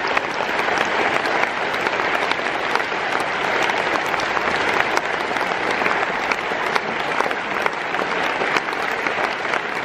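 Concert audience applauding, a dense, steady clapping that holds at an even level throughout.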